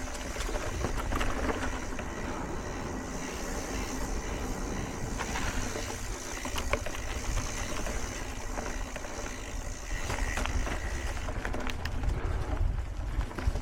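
Mountain bike in motion on a dirt trail: wind rumbling on the camera microphone, with frequent clicks and rattles from the bike going over rough ground.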